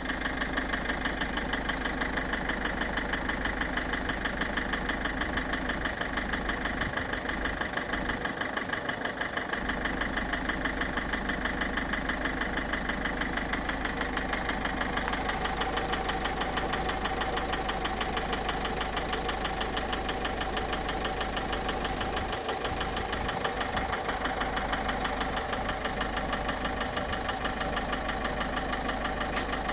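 Car engine idling steadily with a fast, even ticking running through it: the abnormal engine noise that the owner is recording to diagnose.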